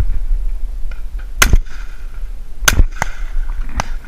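Two shotgun shots about a second and a quarter apart, each with a short echo, from a Beretta Xtrema semi-automatic shotgun. A fainter sharp crack follows near the end, over a steady low rumble.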